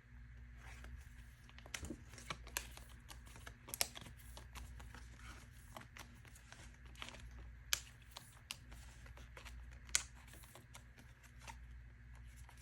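Photocards being slid into plastic binder pocket pages: soft crinkling of the plastic sleeves with scattered small clicks and taps, a few sharper clicks standing out.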